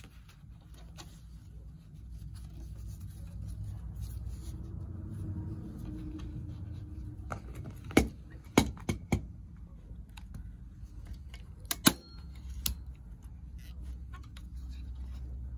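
Handling noise as fabric is folded and pressed down on a wooden TV tray, then a few sharp clicks and knocks: three in quick succession about halfway through and two more a few seconds later.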